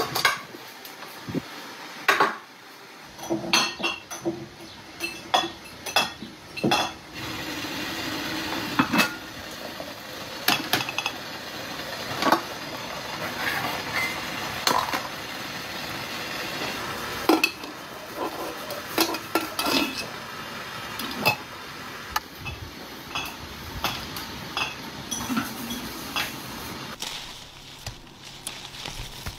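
Metal cookware and utensils clinking and clattering as they are handled: sharp, irregular knocks and clinks with a short ring, over a steady hiss. The knocks thin out near the end.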